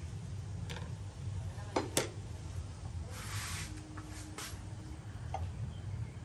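Light clicks and taps of plastic mixing cups and a spray gun being handled, with a short hiss about three seconds in, over a steady low hum.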